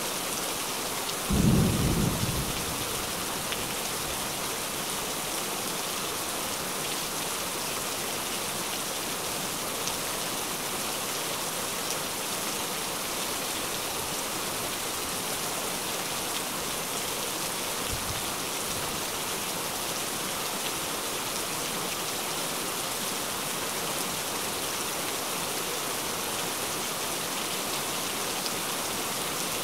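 Steady, even rainfall with a short, loud, low burst of thunder about a second and a half in, and a much fainter low rumble a little past the middle.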